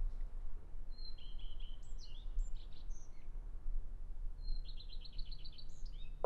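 Small birds chirping: a few short high calls, then a quick run of about eight repeated notes near the end, over a low steady background rumble.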